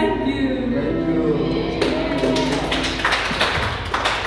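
A woman sings through a microphone over a keyboard. Her singing ends about two seconds in, and a congregation breaks into applause.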